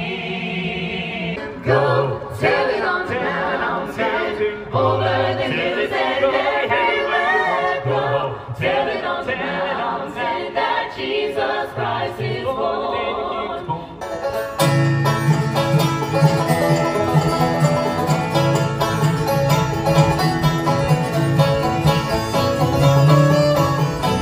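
A choir of carolers singing a Christmas carol. About 14 seconds in it cuts off suddenly, and a bluegrass string band takes over, playing banjo, fiddle and acoustic guitar.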